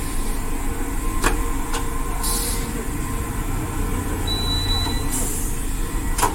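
Motorcycle tyre-change work: two short hisses, like air released under pressure, and a few sharp clicks and knocks over a steady low rumble.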